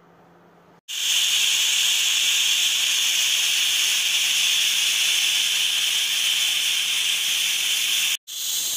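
Pressure cooker venting its steam through the lid valve: a loud, steady hiss that starts about a second in and breaks off for an instant near the end. It is the pressure being let out by hand after part-cooking the mutton, so the lid can be opened.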